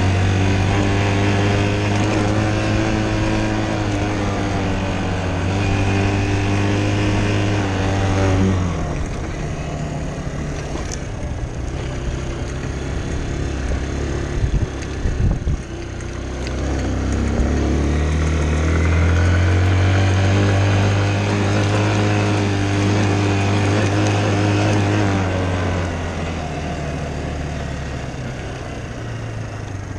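Dirt bike engine running hard at steady high revs on a dirt track, then easing off about nine seconds in. A few low thumps come around fifteen seconds, then the engine pulls up through the revs again and falls away near the end.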